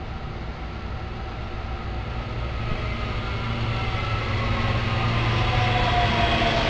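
SEPTA Silverliner IV electric multiple-unit commuter train approaching and pulling in along the platform, growing steadily louder as it nears. A low hum runs under it, and a whine falls in pitch near the end.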